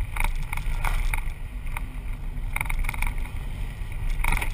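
Road and wind noise heard inside a moving car's cabin: a steady low rumble, with a few short scattered taps and clicks.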